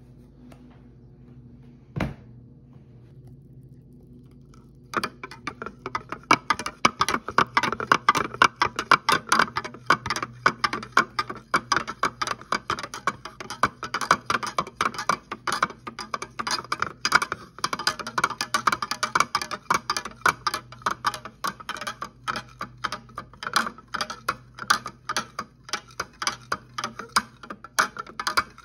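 Metal spoon stirring chocolate syrup into milk in a plastic tumbler, clicking and clinking rapidly against the sides, starting about five seconds in. A single sharp knock comes about two seconds in.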